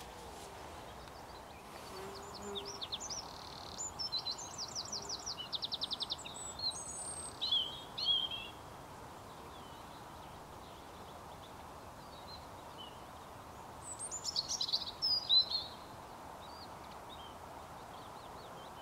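Small songbirds singing over a steady background hiss: a spell of high, quick phrases in the first half, including a rapid trill about five to six seconds in, and another short spell near the end.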